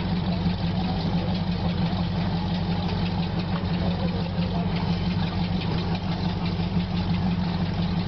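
Speedboat engine running steadily with an even low hum while the boat sits grounded on the shore, its propeller churning up spray at the stern.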